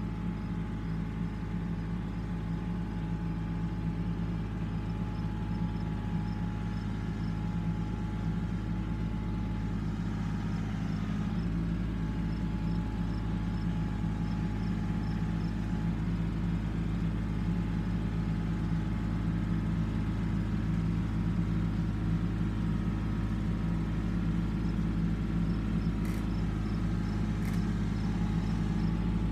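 Tractor engine running steadily as it slowly moves a shed down a woodland track, getting gradually louder as it comes closer. Two brief sharp clicks near the end.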